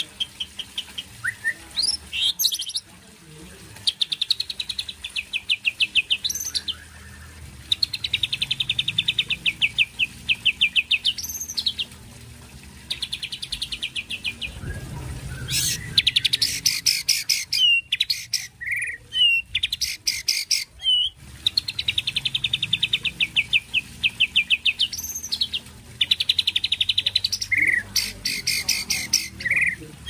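White-rumped shama singing: repeated phrases of rapid trilled notes, many ending in a sharp upward-sweeping whistle, with short pauses between phrases. It is the song fill that the uploader likens to a real kapas tembak.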